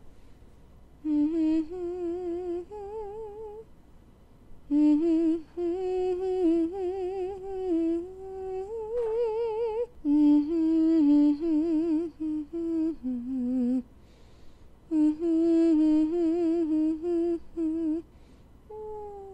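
A single voice humming a slow, wavering melody with vibrato, in several phrases with short pauses between them.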